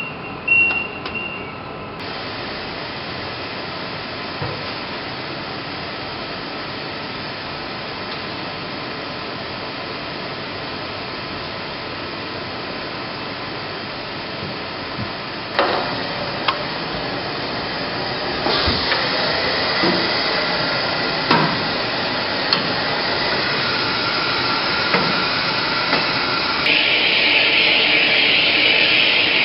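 IMAX Dome projection-booth machinery starting up: a short electronic beep follows a button press on the control console, then about two seconds in a steady blower hiss comes on and keeps running. Scattered knocks and clicks come from handling the projector, and the hiss grows louder in the second half and again near the end.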